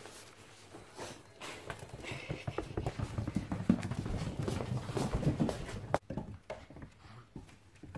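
Six-week-old border collie puppies' paws and claws pattering and skittering on a hard floor as they run and play, an irregular run of quick taps that thins out after about six seconds.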